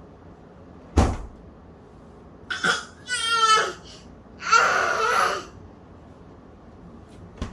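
A single sharp knock about a second in, then a young child's wordless whining cries, two of them, the second louder.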